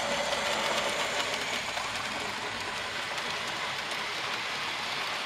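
Model railway goods train rolling past on the track behind a model 9F 2-10-0 steam locomotive: a steady rolling rumble from the wagons' wheels, with rapid small clicks over the rail joints.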